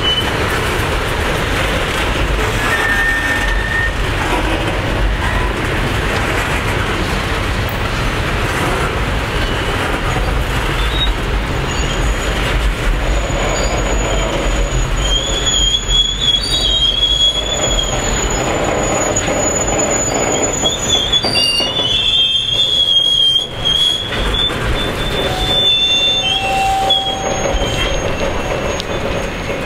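Loaded freight tank cars rolling past: a steady rumble and clatter of steel wheels on rail, joined from about twelve seconds in by a thin, high-pitched metallic squealing that comes and goes.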